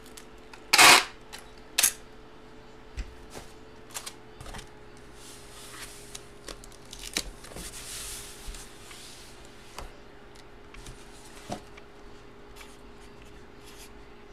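Hands handling a large sleeved photo and its packaging: a sharp crinkle about a second in, a lighter click a second later, then scattered taps and a few seconds of sliding and rubbing, over a faint steady hum.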